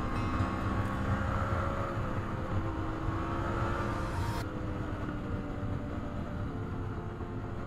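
Vehicle noise: a steady low rumble with engine-like tones that drift slowly in pitch. About four and a half seconds in, the high hiss drops away abruptly.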